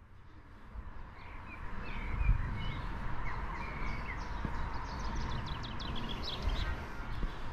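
Songbirds chirping and trilling in short phrases over steady outdoor background noise, with a low rumble underneath.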